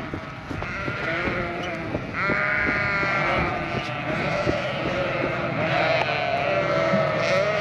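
A flock of sheep bleating: many calls overlap, growing louder about two seconds in, with scattered knocks among them. These are ewes and lambs calling after being split apart at weaning.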